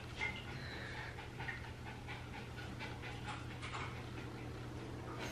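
Small dog panting, soft quick breaths.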